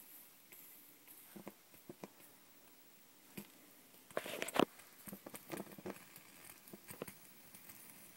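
Mini Bull Design Elite alcohol stove blooming, its side jets lighting, with faint irregular clicks and crackles throughout and a louder cluster of them about four seconds in.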